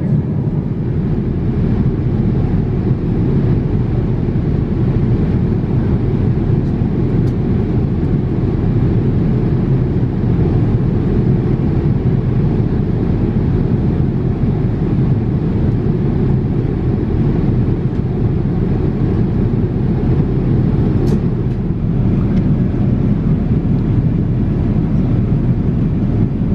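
Steady in-flight cabin noise inside a Boeing 787-8 airliner at cruise: a constant, deep rush of airflow and engine noise that does not change. One faint click comes about three-quarters of the way through.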